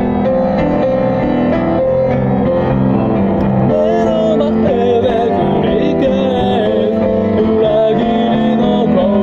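Solo self-accompanied song: instrumental accompaniment playing, with a singing voice coming in about four seconds in and carrying a wavering melody over it.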